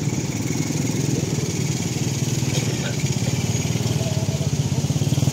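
An engine running steadily with a low, fast-pulsing rumble, a little louder near the end.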